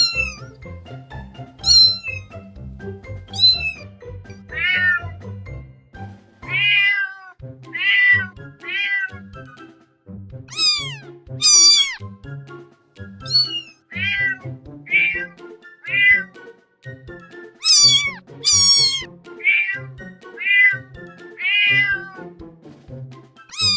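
Cats meowing over and over, about one call a second, each call sliding down in pitch; some calls are much higher and thinner than others.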